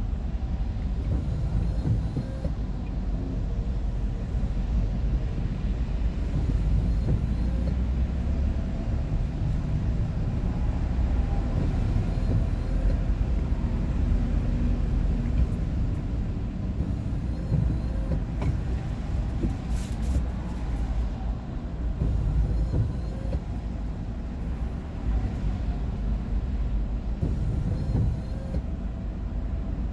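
Steady low rumble of engine and road noise inside a moving vehicle at cruising speed.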